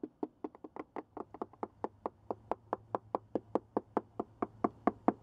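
Plastic mallet lightly tapping a cored fiberglass sailboat deck in quick, even strokes, about six a second, some taps fainter than others. The deck is being sounded for delamination: solid sections give a solid thunk, delaminated ones a hollow sound.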